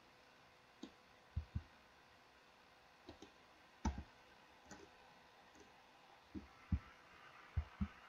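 A dozen or so short computer mouse and keyboard clicks, scattered and some in quick pairs, over a faint steady hiss.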